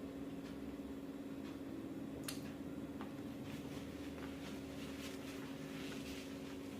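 Faint chewing and mouth sounds of someone eating a hamburger, a scatter of soft smacks and clicks over a steady low hum.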